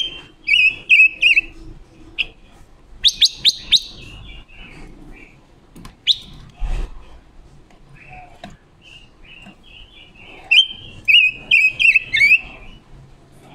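Caged silver-eared mesia, a female decoy bird, singing in several short bursts of quick chirps and sliding whistled notes, with pauses between the bursts.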